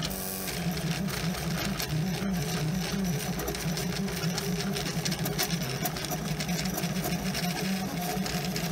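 3D printer printing: its stepper motors whir in a steady drone whose pitch keeps stepping up and down as the print head changes moves.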